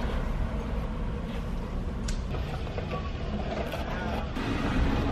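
Steady low vehicle rumble heard from inside a car, with a few faint clicks.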